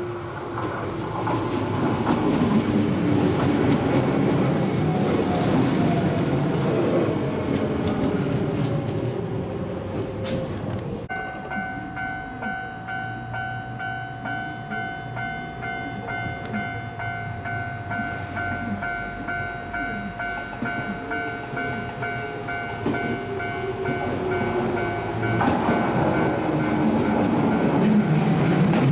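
Shizuoka Railway 1000-series electric train running in, its motor whine falling in pitch as it slows over rumbling wheel and rail noise. After an abrupt break, a steady ringing tone sounds for about fourteen seconds. Near the end, another train's rail noise builds as it approaches.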